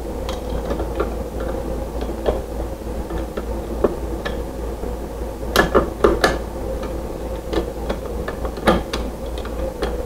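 Small metal clicks and scrapes from a screwdriver and a light switch's mounting screws as the switch is pushed into its wall box and the screws are caught in the box, with a few sharper clicks around six seconds in and again near nine seconds. A steady low hum runs underneath.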